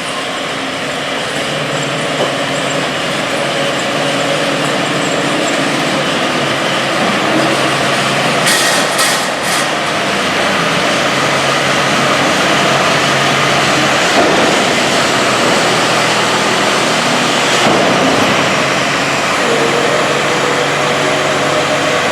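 Heavy farm machinery running: a large engine working steadily with mechanical clatter, getting louder over the first several seconds, with a few short sharp clicks near the middle and a couple of knocks later.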